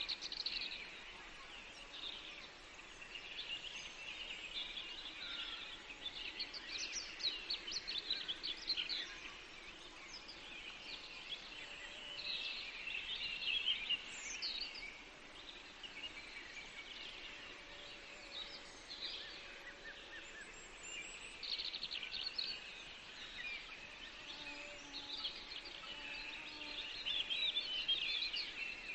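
Small songbirds chirping and trilling in repeated clusters of quick high notes, over a faint steady background hiss.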